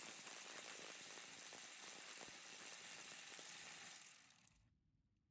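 Reciprocating-saw-driven vibration rig shaking a steel bolted-joint test block, a dense metallic rattle and buzz sped up three times. It cuts off suddenly about four seconds in.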